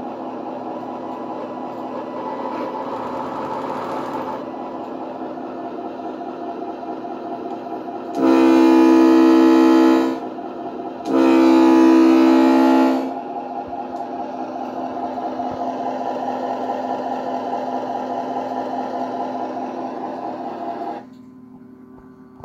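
Model tugboat's sound module playing a steady diesel-engine hum, broken by two loud horn blasts of about two seconds each, about eight and eleven seconds in. The engine sound cuts off suddenly near the end.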